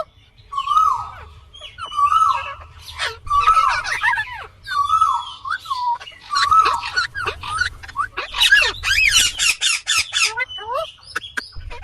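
Indian ringneck parrot (rose-ringed parakeet) calling: a series of drawn-out notes that bend in pitch, then a rapid run of short shrill screeches near the end.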